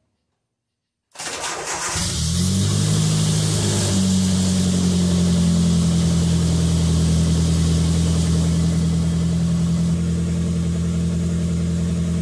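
Turbocharged Nissan Hardbody pickup's engine starting from cold on a newly fitted Walbro 255 high-flow fuel pump. About a second in it cranks briefly and catches, revs up for a moment, then settles into a steady idle.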